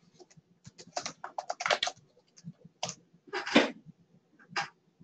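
Typing on a computer keyboard: irregular runs of clicks, with a louder clatter about three and a half seconds in.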